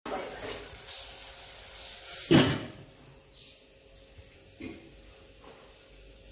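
Stuffed okra sizzling in hot oil in a pot, fading over the first two seconds, then one loud clatter of kitchen utensils a little over two seconds in, followed by a few faint clinks.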